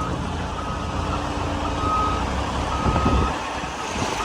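Backup alarm of a reversing vehicle beeping steadily, about once a second, over the low rumble of a running engine.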